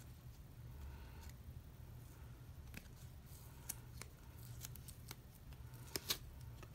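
Faint small clicks and scrapes of plastic as a photocard is worked out of a rigid plastic toploader and its sleeves, over a low steady hum.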